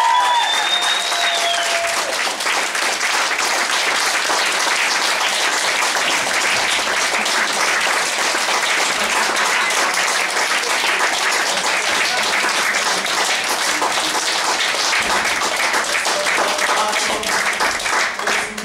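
Audience applauding steadily, many hands clapping at once, with a voice calling out in the first couple of seconds; the applause dies away right at the end.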